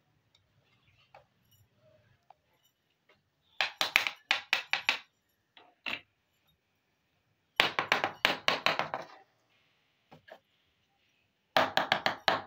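Small plastic miniature toy kitchen pieces clattering as they are set down, in three bursts of rapid clicks and taps about four seconds apart.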